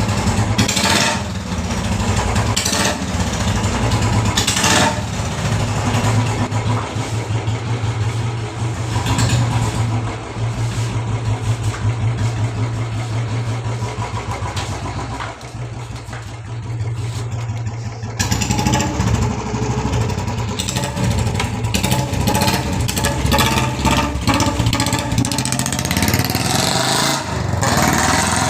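Royal Enfield Bullet's single-cylinder engine running after a top-end rebuild with new hydraulic tappets. It runs steadily, eases off for a few seconds past the middle, then picks up again.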